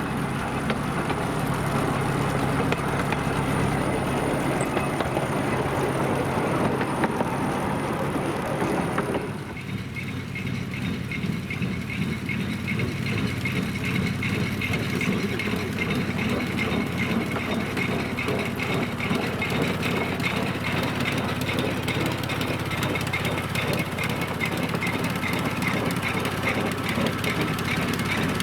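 Narrow-gauge forest railway train running, its engine and wheels on the track making a steady noise. The sound changes abruptly about nine seconds in, and after that a faint, regular ticking runs through it.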